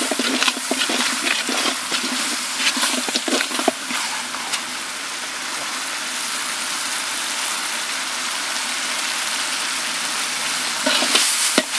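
Onion-tomato masala frying in oil in a large metal pot, with a ladle scraping and knocking against the pot for the first few seconds, then a steady sizzle.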